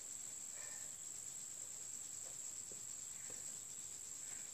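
Crickets chirring in a steady high-pitched drone.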